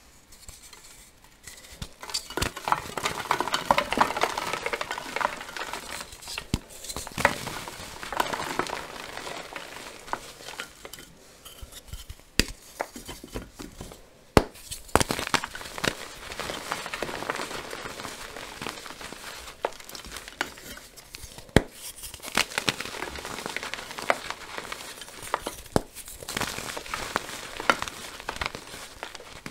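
Blocks of dyed gym chalk snapped and crushed by hand, crumbling with dense crackling and many sharp crunchy snaps that start about two seconds in. Loose chalk crumbs and powder are then squeezed and rubbed between the fingers.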